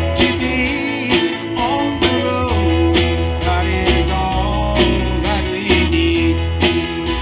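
Live country-gospel band playing an instrumental passage: strummed acoustic guitar over sustained bass notes and a steady drum beat, with a melody line of held and sliding notes above.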